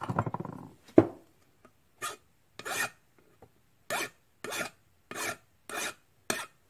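Clatter of small metal parts being handled and a sharp knock in the first second. Then a hand file scrapes over a small metal engine-governor part in about seven short strokes, roughly one every half second.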